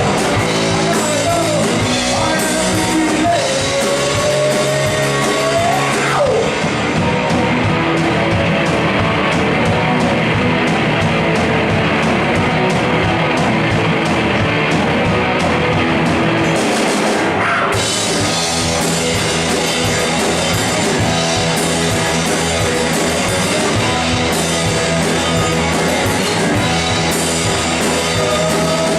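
Live punk rock band playing loud and full-on: distorted electric guitars, bass and a pounding drum kit.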